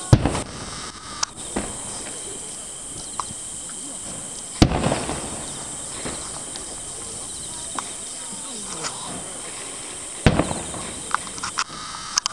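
Large aerial firework shells bursting: three heavy booms about five seconds apart, with lighter cracks and pops between them.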